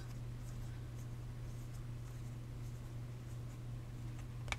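Basketball trading cards being slid one by one from the front to the back of a stack held in the hand: faint scraping and rustling of card stock over a steady low hum, with a sharp click near the end.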